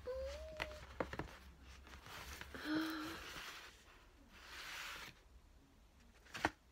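Packaging being handled: two spells of crinkling and rustling, with a few sharp clicks and taps. A cat's short meow at the very start.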